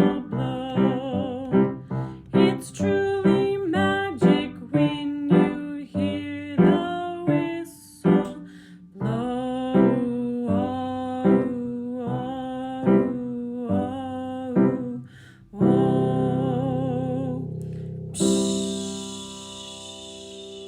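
A song with a woman singing over keyboard accompaniment, ending on a long held chord. Near the end a short "psssh" hiss starts suddenly and fades away.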